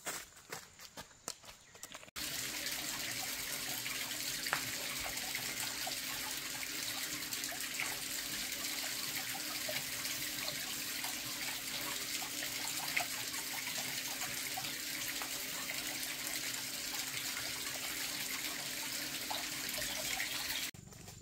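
Steady rush of running water, cutting in abruptly about two seconds in and stopping abruptly just before the end.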